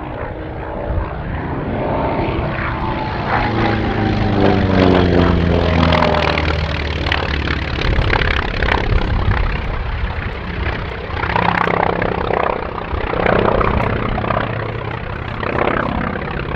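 Grumman Wildcat fighter's radial engine and propeller in flight. The engine note falls in pitch as the aircraft passes, loudest about five seconds in, then rises and fades in several swells as it manoeuvres.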